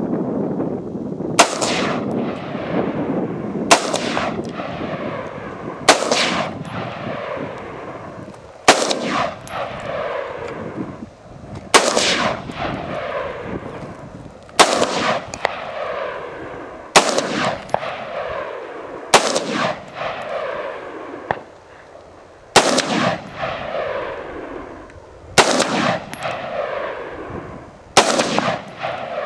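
Bushmaster XM15 AR-15 rifle fired in slow, single aimed shots, about eleven of them, one every two to three seconds, each loud crack followed by a long rolling echo.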